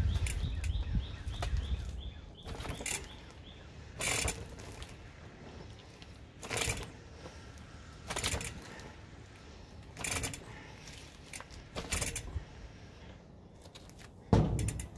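Mountain bike front end being bounced on its RockShox Lyrik fork with a Push ACS3 coil conversion, in a rebound-damping bounce test: about seven sharp knocks, one every two seconds or so, as the fork is pushed down and springs back and the tyre comes back onto the ground. A short run of rear freehub ticking sounds near the start.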